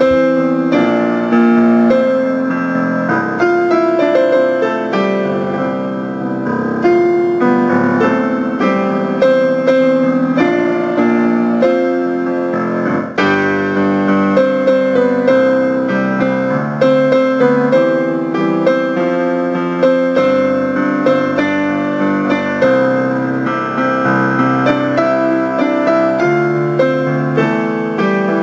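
Piano playing the notes of a choral arrangement in steady rhythm, a part-learning track for the baritone line.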